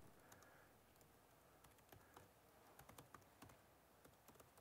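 Faint typing on a computer keyboard: scattered, irregular key clicks as a command is typed.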